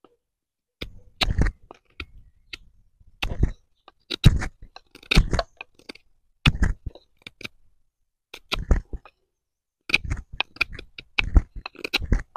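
BPS Bushmate bushcraft knife cutting and shaving into a thick wooden stick: a string of short, sharp strokes at uneven intervals, coming quicker over the last few seconds.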